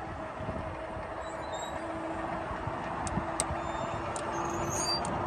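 Level crossing barrier machine humming steadily as it raises the barrier boom, over a low rumble that grows slightly louder. A few faint ticks come in the second half.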